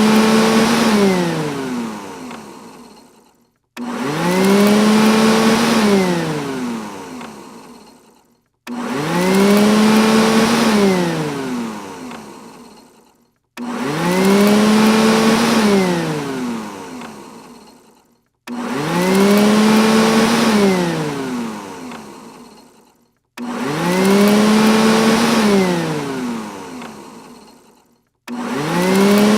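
Robot vacuum cleaner's motor starting with a quick rise in pitch, running steadily for a moment, then winding down with falling pitch and fading out. The cycle repeats about every five seconds with a short silence between, six times in all.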